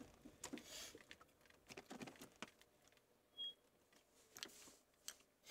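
Near silence with faint scattered clicks and rustles, and one short high beep about three and a half seconds in.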